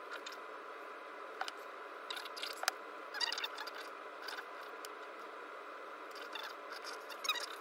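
Hands handling an e-bike motor controller's wiring harness: small plastic wire connectors clicking and wires rustling and scraping, a few sharp clicks and short crackly rustles over a steady background hum.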